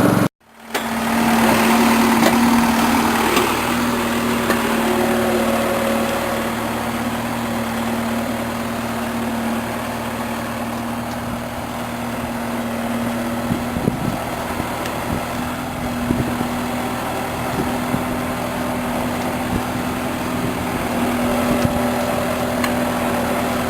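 An engine running steadily at an even speed, with a constant hum and a few small ticks. The sound cuts out for a moment just after the start, then resumes.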